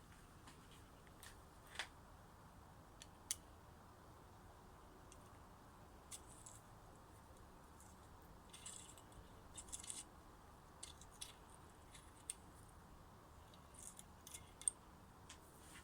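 Faint, scattered small metallic clicks and taps of a bicycle disc brake caliper and its pads being handled, with a cluster of quick scratchy ticks around the middle and a sharper click near the end, over near-silent room tone.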